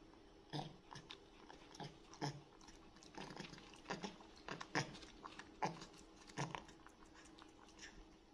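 A baby monkey chewing a crunchy snack: faint, irregular crisp crunches about one or two a second, over a low steady hum.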